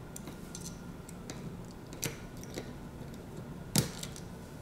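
Faint ticks and clicks of a metal tool prying up a flex-cable connector inside a Google Pixel 4, with two sharper clicks about two seconds in and near four seconds.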